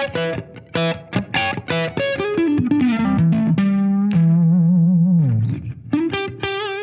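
Gibson electric guitar played through an overdriven amp: a lead phrase of quick picked notes and a falling run, then a held note with vibrato that bends down and fades. After a short gap, a few more notes end on another held note with vibrato.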